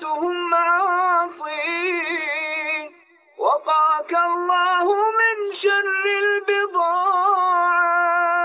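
A man's high voice chanting an Arabic nasheed in long, ornamented held notes with a wavering vibrato. There is a brief break about three seconds in, then the melody resumes and holds to a final long note.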